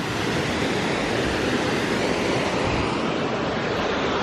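Waterfall pouring steadily, running full: a dense, even rush of falling water.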